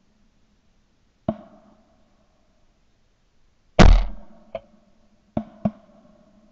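A shotgun fires once close by, just under four seconds in: a loud sharp report with a deep boom that dies away in about half a second. Several quieter sharp cracks come about a second in and twice more near the end.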